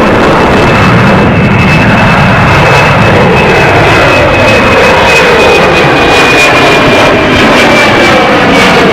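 Jet airliner's engines passing close, a loud steady rush with a high whine that slowly falls in pitch.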